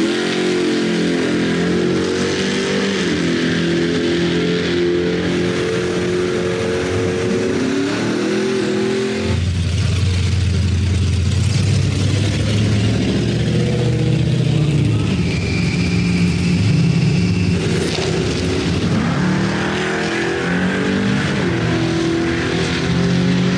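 Drag cars accelerating hard down the strip: a Chevrolet Nova's engine revs up through the gears, its pitch climbing and dropping at each shift. About nine seconds in, a classic Chevrolet pickup takes its place, its engine likewise climbing through the gears on its run.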